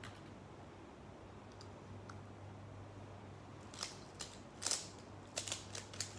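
Faint steady hum, then from about four seconds in a quick run of sharp plastic clicks and clacks as a 3x3 speedcube is handled and its layers are turned.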